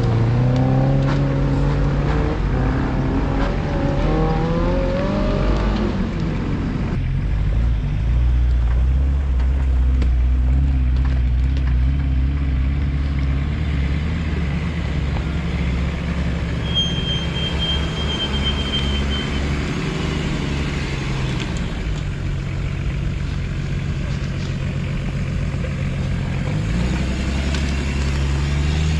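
Nissan Patrol GR 4x4's engine pulling under load, its pitch climbing for the first several seconds as it revs. It then settles into a steady low drone, with a thin high whine for a couple of seconds partway through, and revs rise again near the end.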